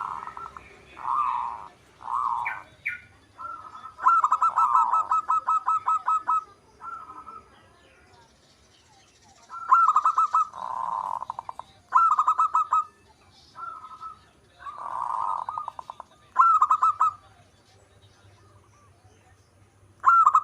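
Zebra dove (perkutut) cooing. It gives a series of short phrases of rapid pulsed coos, with one longer pulsed run of about two and a half seconds a few seconds in, the phrases separated by pauses.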